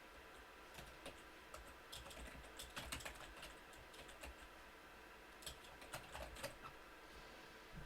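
Faint typing on a computer keyboard: uneven bursts of keystrokes as a text query is typed in, with short pauses between the bursts.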